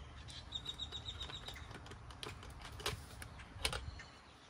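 Light clicks and taps of hand tools being handled at a brass flare fitting as a torque wrench is taken off and a pliers wrench is held on it. About half a second in comes a quick run of about ten short, high chirps.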